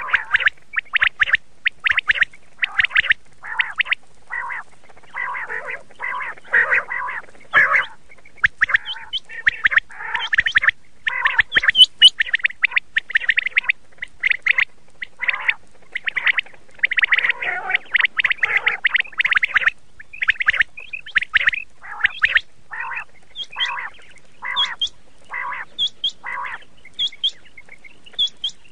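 Quail calling: a fast, crowded run of short repeated calls, which thins out in the last several seconds into evenly spaced calls a little under a second apart, with a thin higher note over them.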